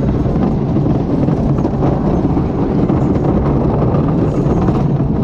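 Wooden roller coaster train rolling along the top of the lift hill toward the first drop: a loud, steady rumble of its wheels on the wooden track.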